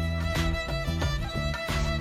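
Instrumental background music with a steady beat and a bowed-string melody.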